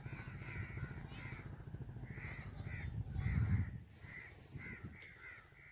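Crows cawing over and over, a few short calls a second, over a low rumble that swells and then stops about four seconds in.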